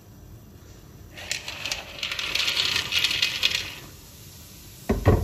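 Dry pasta poured from a plastic container into a pot of boiling water, a dense clattering rattle of pieces sliding out and dropping for about two and a half seconds. A dull thump follows near the end.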